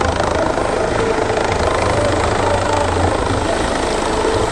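Helicopter running close by, a loud, steady rotor and engine noise with a deep rumble.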